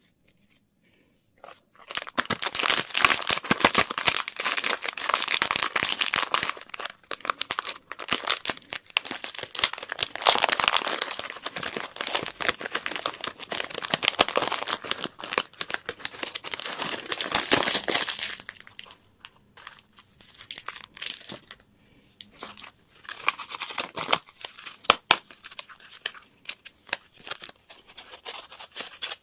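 Candy wrapper being crinkled and torn open by hand. It starts about a second and a half in, runs as dense crackling until past the middle, then turns to intermittent rustles.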